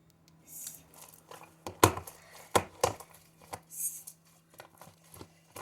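Sticky slime with foam beads being squeezed and pulled by hand: a run of sharp pops and clicks, loudest about two seconds in, with a couple of short hissing squelches.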